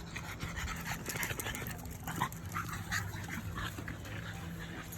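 French bulldog panting hard in quick breaths.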